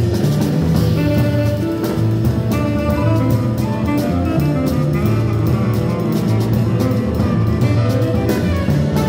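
Small jazz group playing live: a tenor saxophone plays a melody line over piano, upright bass and a drum kit with cymbals.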